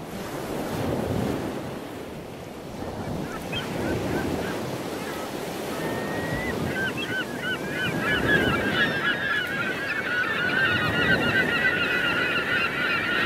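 Surf washing in, swelling every few seconds, with a flock of birds calling over it. The calls begin a few seconds in and grow into a dense, overlapping chorus from about halfway.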